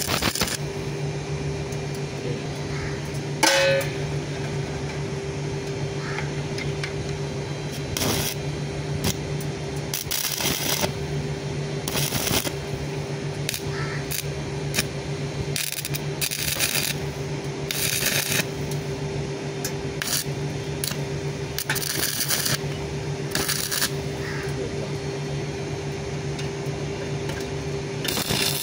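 Stick (arc) welding of thin stainless steel sheet: about a dozen short bursts of arc crackle as the electrode is struck and tack welds are made, each lasting under a second, the loudest a few seconds in. A steady hum runs underneath.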